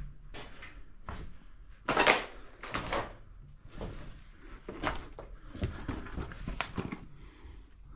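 Irregular scuffing and rustling noises, spaced about half a second to a second apart, the loudest about two seconds in.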